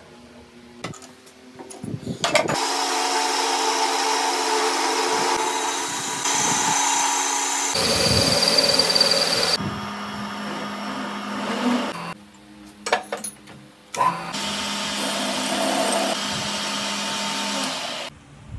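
Metal lathe running with a steady hum, broken by two long stretches of loud cutting noise as the tool works the metal: the first from a couple of seconds in, the second near the end. Sharp clicks fall in the quieter gap between them.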